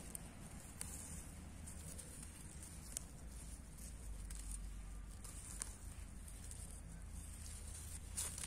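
Scattered light clicks and rustles of plants being handled while wild greens are picked, over a low steady rumble.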